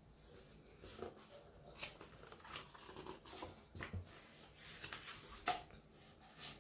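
Hardcover book being handled and opened: soft rustles and light taps of the cover and paper pages turning, irregular, the sharpest about five and a half seconds in.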